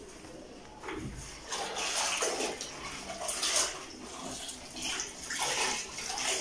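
A floor cloth being rinsed and wrung out in a plastic bucket of water: irregular sloshing and splashing in bursts, starting about a second in.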